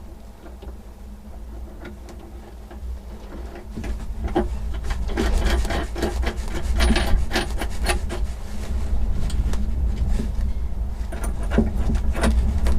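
Hands fumbling with stainless washers and nuts on through-bolts in a cramped fibreglass locker: rubbing and scraping with small metallic clicks, busiest in the middle and again near the end, over a steady low rumble.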